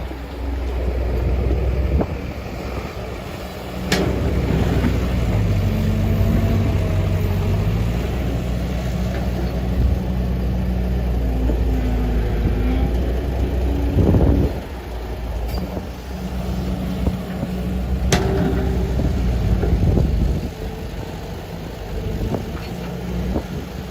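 Case 145D excavator's diesel engine running, its pitch and strength shifting as the machine works under changing load while digging and loading dirt, with two sharp knocks, about 4 seconds in and again near 18 seconds.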